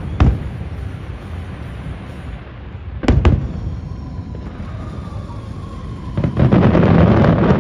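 Fireworks shells bursting: a sharp bang just after the start and another about three seconds in, then from about six seconds in a dense barrage of bursts and crackle, the closing stretch of the display.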